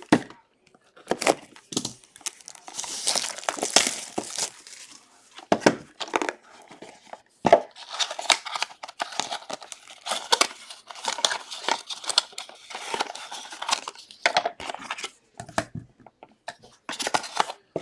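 Trading card packaging being torn open and crinkled by hand: irregular bouts of tearing and rustling plastic or foil wrapper, with a few sharp clicks.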